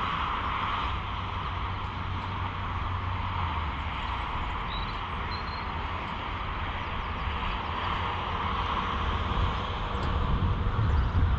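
Yamaha XVS 650 Drag Star Classic's V-twin engine idling steadily, picked up by a helmet-mounted camera, growing louder near the end.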